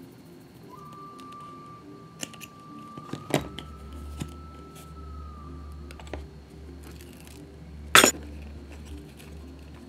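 Scattered small clicks and taps of hands working leather pieces and double-sided tape on a cutting mat, the loudest a sharp tap about eight seconds in as the pieces are pressed together, over soft background music.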